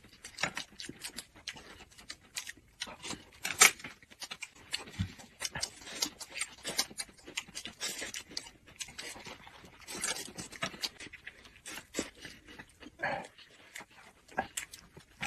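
Close-miked chewing of thin wheat pancakes rolled around vegetables: irregular crisp crunches, wet mouth clicks and lip smacks, with one sharper click a few seconds in.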